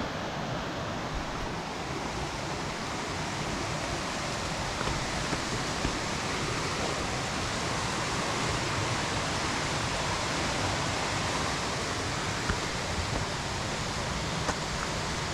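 Steady rushing of falling water, swollen by heavy rain, with a few faint clicks.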